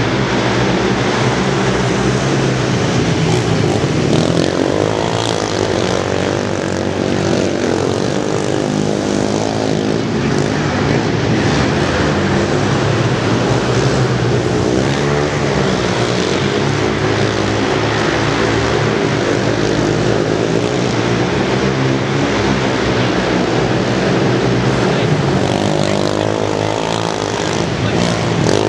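Several youth racing quads (ATVs) running together at full race pace. The engines rev up and down over and over as the riders accelerate, shift and back off through the turns and jumps.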